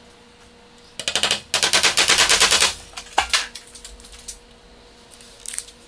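A small nail being driven into a wooden beam with a rapid rattle of strikes. A short burst comes about a second in, then after a brief pause a longer run of about a second, and a single knock follows near the end of the run.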